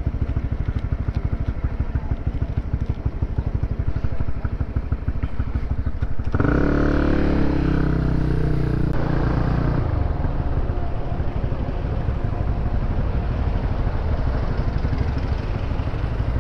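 Honda CB150R single-cylinder motorcycle engine running at low revs, with a fast, even pulsing beat. About six seconds in, a louder engine drone swells for some three seconds and then falls back.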